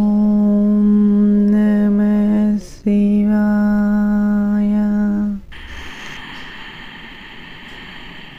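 A single voice chanting in long held notes at a steady pitch, pausing briefly for a breath about two and a half seconds in. The chant stops about five and a half seconds in, giving way to a quieter steady hiss.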